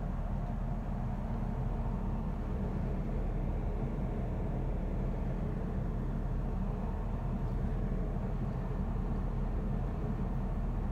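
Moving passenger train heard from inside the carriage: a steady low rumble.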